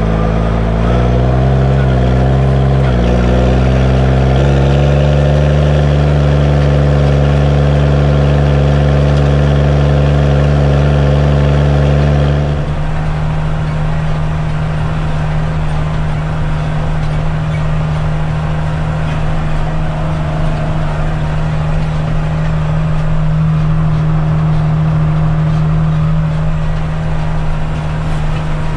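Case MX135 tractor's six-cylinder diesel engine running under load, its pitch dipping twice and then rising before it settles into a steady drone. About twelve seconds in it turns quieter and duller, as heard from inside the cab.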